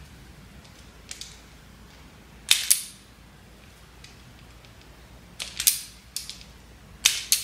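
A few sharp clicks, most in quick pairs: one pair about two and a half seconds in, then a cluster of snaps over the last two seconds.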